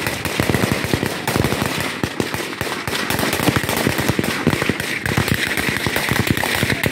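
Sustained automatic gunfire in a firefight: rapid shots crowding together, many a second, without a break.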